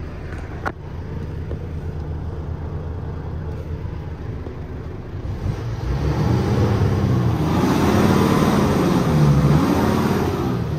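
Iveco truck's diesel engine idling steadily, then revved from about halfway through, growing louder with its pitch rising and falling for a few seconds before easing back toward idle.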